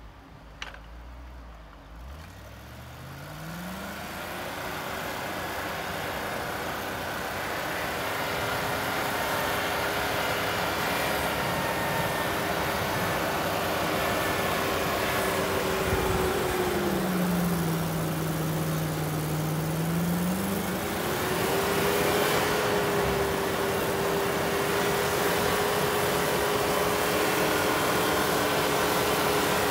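Land Rover Discovery 2's 4.0-litre V8 revving up about two seconds in, then running steadily under load through deep snow, growing louder as the truck approaches. About two-thirds of the way through, its pitch drops for a few seconds and then climbs back.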